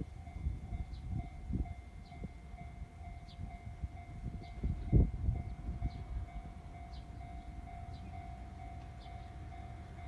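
Train passing over a level crossing, its wheels knocking over the rail joints, the loudest knock about five seconds in, then fading to a low rumble after about six seconds. Meanwhile the crossing's warning bell sounds a steady ringing tone.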